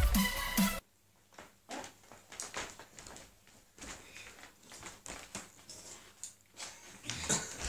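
Electronic music cuts off just under a second in. Then a quiet room with scattered soft knocks and rustles of a person moving about.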